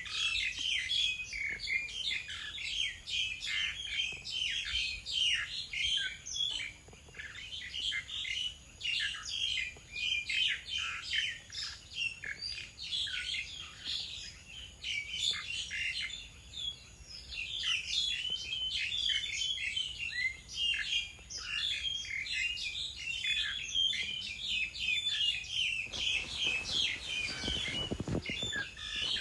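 Many small birds chirping and twittering, with quick, overlapping high notes and no break.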